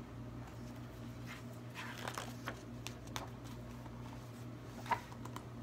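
Pages of a large hardcover picture book being handled and turned: a few short paper rustles and soft taps, the sharpest near the end, over a steady low hum.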